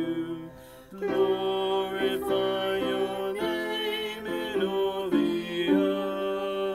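Upright piano playing a slow worship-chorus melody in sustained chords. The sound drops briefly about half a second in, and a new chord comes in about a second in.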